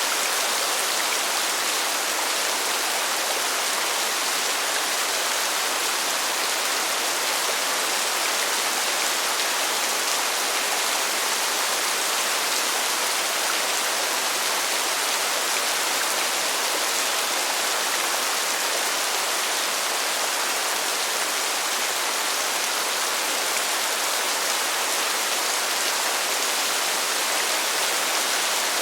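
Heavy rain falling in a steady, unbroken downpour, an even hiss that does not change.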